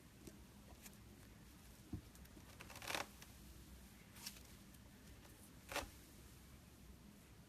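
Slime being handled: a few faint sticky crackles and pops, the loudest about three seconds in and another near six seconds.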